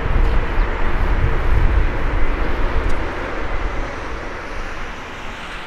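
Jet engines of a Boeing 787-9 Dreamliner climbing away after takeoff: a deep rumble with a broad hiss on top, fading steadily over the second half as the airliner recedes.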